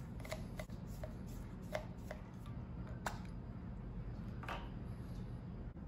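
Small handling clicks and scrapes as the Phillips screws come out of a sharkfin car antenna and its base is separated: a few light ticks in the first two seconds, a sharper click about three seconds in, and a brief scrape about a second later.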